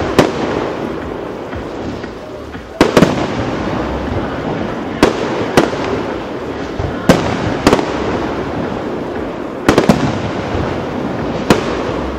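Fireworks display: about ten sharp bangs, roughly every two seconds and often two in quick succession, over a continuous rushing noise from the shells and comets going up.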